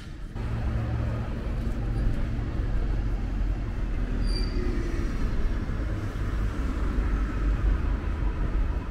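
Road traffic: vehicle engines running on the street alongside, a steady low rumble that comes in suddenly just after the start.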